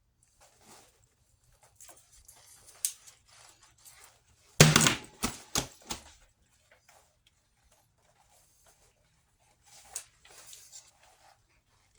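A series of small clicks and knocks from objects being handled and set down, with a cluster of louder sharp knocks about four and a half seconds in and another knock near ten seconds.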